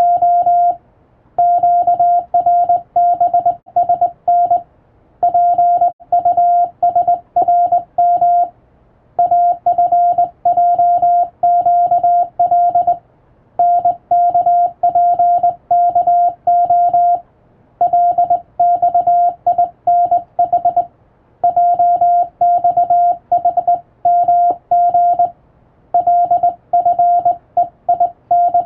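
Hand-sent Morse code: a steady beeping tone keyed on and off in dots and dashes, sent in runs of about four seconds with short pauses between the groups, from English-language telegram practice text.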